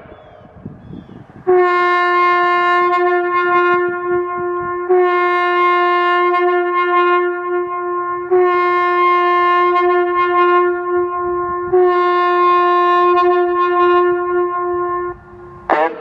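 Loudoun Communications ES-5000DC electronic warning siren sounding its air horn tone in a test cycle: four long, steady blasts of about three and a half seconds each, nearly back to back, starting about a second and a half in.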